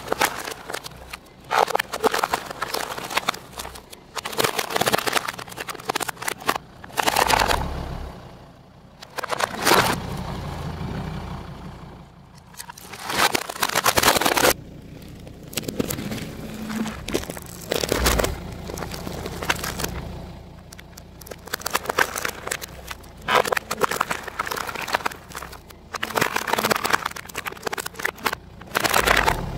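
Car tyre rolling onto a plastic toy racing car on gravel, the plastic cracking and crunching in repeated bursts along with crunching gravel, over the low running of the car's engine.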